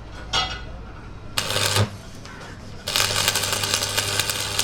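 Light metallic clinks, then about three seconds in a machine starts up and runs steadily.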